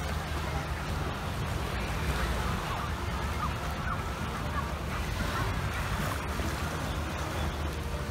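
Small waves washing onto a sandy shore, with steady wind rumble on the microphone.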